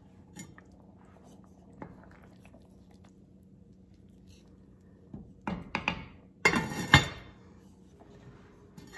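Wooden spoon stirring and scraping in an enamelled cast-iron Dutch oven about five seconds in, followed by the heavy lid set back down on the pot with a clank about seven seconds in. A faint steady hum runs underneath.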